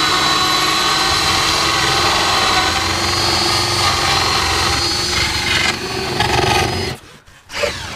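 Cordless drill with a hole saw running steadily, cutting a vent hole through foam-board insulation. It cuts off abruptly about seven seconds in.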